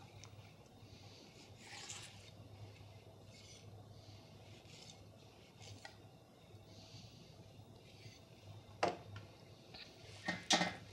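Flexible boning knife slicing a flatfish fillet away from the bones in faint, soft scraping strokes, with a few sharp knocks near the end.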